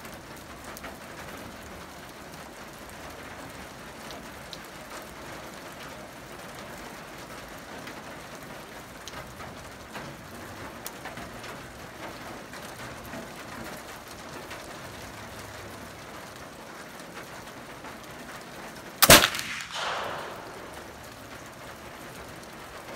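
A single shot from a .36-calibre Kibler Southern Mountain Rifle, a black-powder muzzleloader, fired once near the end, with an echo that rolls on for about a second after the crack.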